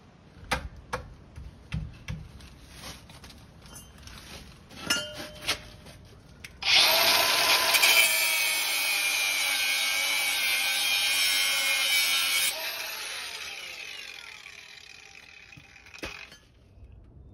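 Small cordless angle grinder cutting metal: a few light handling knocks, then the grinder starts suddenly about halfway through and whines steadily while it cuts for about six seconds. It is then released and spins down with a falling tone.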